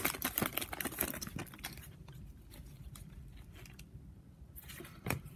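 Foil trading-card pack wrapper crinkling as gloved hands pull the cards out, crackling densely for the first second or so and then thinning out. After that there is only faint handling of the card stack, with a short rustle near the end.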